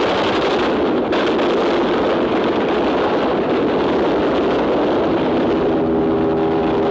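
Warplane engines in an old newsreel soundtrack: a loud continuous roar, with a steady engine drone coming in near the end.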